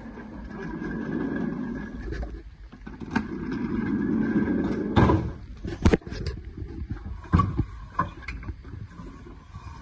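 Electric sit-stand desk base's motors running with a steady hum and faint whine, stopping about five seconds in. Several sharp knocks and clatters follow.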